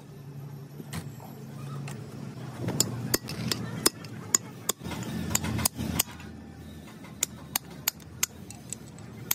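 A metal tool clinking against a truck's rear wheel hub while grease is worked into it. There are sharp metallic clinks at an irregular pace, a few a second, from about three seconds in, over a low rumbling noise of handling.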